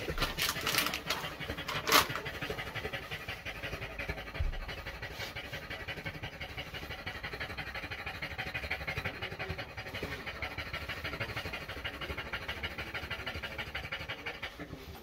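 A flat-faced (brachycephalic) dog panting hard and fast in a steady rhythm, out of breath after a walk.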